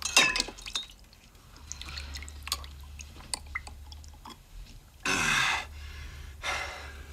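A glass dipped into a cut-glass punch bowl of eggnog: clinks of glass and drips of liquid. Two short, louder rushing noises follow, about five and six and a half seconds in.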